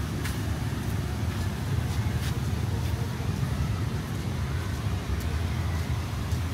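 City street ambience: a steady low traffic rumble with a few faint clicks.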